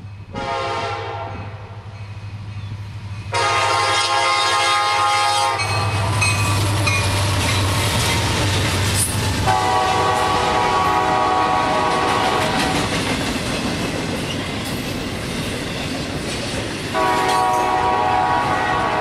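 Freight train locomotive sounding its horn for a grade crossing as it approaches, the horn growing louder, then passing close with a deep engine rumble. Double-stack container cars follow, rolling by with clickety-clack from the wheels, with two more sustained tones about ten and seventeen seconds in.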